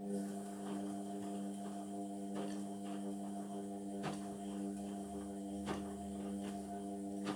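Indesit washing machine's pump switching on and humming steadily, a stack of even tones with a light hiss over it. A relay clicks just before it starts, and faint knocks come from the machine now and then.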